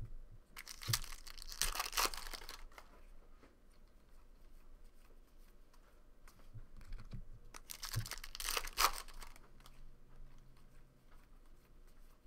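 A foil trading-card pack from a 2013 Bowman Draft baseball box being torn open and its wrapper crinkled, in two bursts about a second in and about eight seconds in, with soft rustling of cards being handled between.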